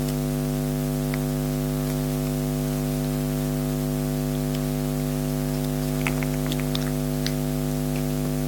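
Steady electrical hum with a buzzy stack of tones and hiss over it, typical of mains interference in the recording, with a few faint clicks about six to seven seconds in.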